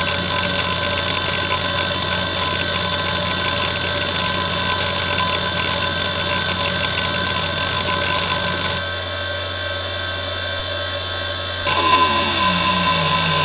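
Fujitsu MPB3021AT hard drive working: its spindle whines steadily under a rapid chatter of head seeks. About nine seconds in the seeking stops, leaving only the spindle hum. Near the end a louder seek buzz starts and falls steadily in pitch as the benchmark's seeks grow longer.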